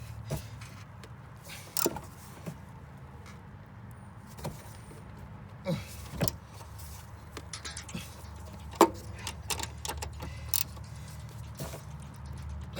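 Hand tools working on car suspension bolts: scattered, irregular metal clicks and knocks over a steady low hum.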